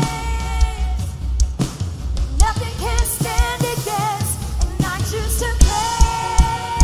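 Worship band playing a song: a lead singer holding wavering notes over drums and bass, with the drums hitting in a steady beat.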